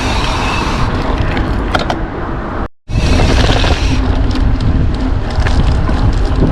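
Strong wind buffeting the microphone, a loud, steady rumble with hiss, broken by a brief total dropout just before three seconds in.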